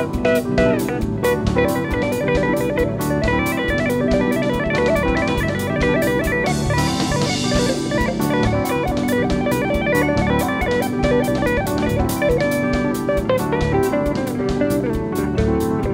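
Live jazz band playing: a guitar carries quick runs of notes over bass and drum kit, keeping a steady, busy groove.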